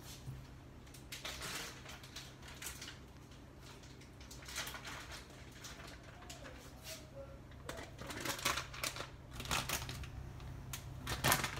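A plastic food packet crinkling as it is handled, in several short rustling bursts, the loudest near the end, over a steady low hum.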